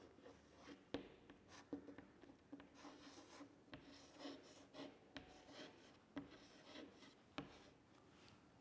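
Faint handwriting: short scratching strokes with a few light taps.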